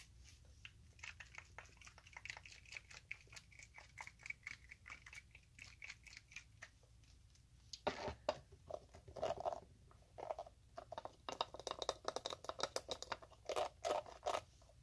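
Close handling noise of hair things, a plastic squeeze bottle and a hairbrush: a quick run of small crackling clicks, then from about eight seconds in louder, irregular knocks, rustles and scratches as things are picked up and moved.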